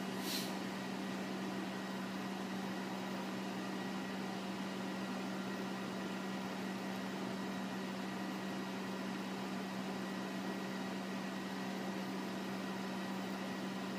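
Steady hum of running lab equipment: a constant low drone with a few fainter higher tones over an even, fan-like hiss.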